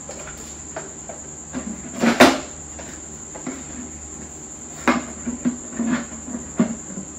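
Knocks and clatters of a bathroom dustbin being handled, the loudest about two seconds in and several more in the second half, over crickets trilling steadily.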